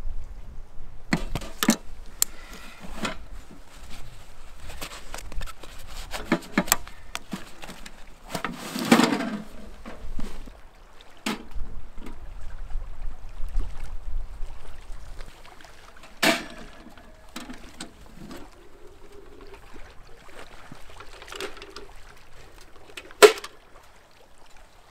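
Scattered metal clanks and knocks from a homemade steel ammo-can wood stove being handled and set up, a few ringing briefly, with a longer scraping rush about nine seconds in. Water lapping and a low rumble run underneath.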